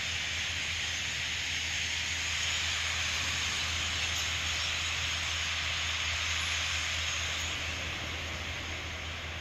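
A large flock of European starlings passing overhead: a dense, even wash of massed chatter and wingbeats that eases off near the end as the flock moves on.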